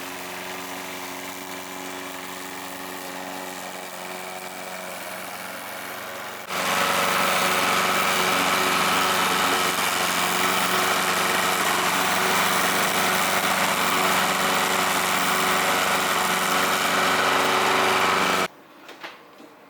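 Small petrol engine of lawn-care equipment running steadily. It gets much louder about six and a half seconds in and stops abruptly about a second before the end.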